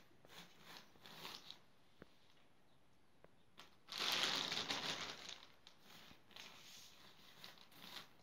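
Hands gathering chopped green onions off a plastic sheet onto an aluminium tray: soft crinkling and rustling of the plastic. A louder rustle comes about four seconds in and lasts about a second.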